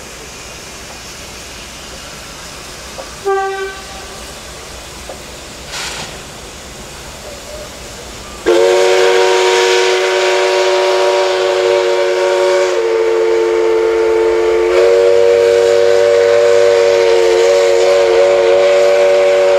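Steam locomotive 5917's chime whistle: a short toot a few seconds in, then a long, loud blast of several notes held for about eleven seconds, the chord dipping lower for a couple of seconds in the middle. Underneath is the low rumble of the passing train.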